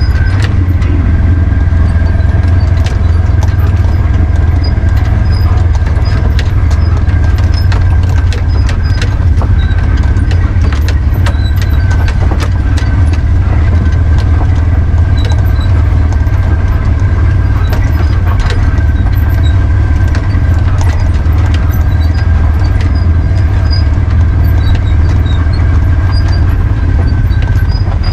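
Polaris UTV running as it rolls down a rough gravel and dirt road: a steady, loud low engine drone with a thin steady whine over it and scattered clicks and knocks from the ride.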